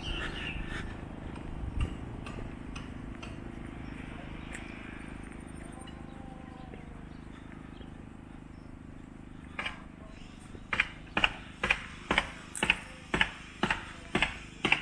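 Footsteps on a hard surface at a steady walking pace, about two steps a second. They start about two-thirds of the way in, over steady low background noise.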